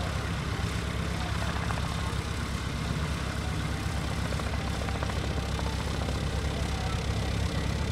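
Steen Skybolt biplane's piston engine and propeller running steadily as it taxis past.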